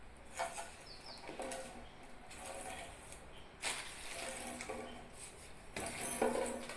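Soft grass broom swept over a tiled floor in several short swishing strokes, pushing a plastic crisp packet along, with the loudest stroke near the end.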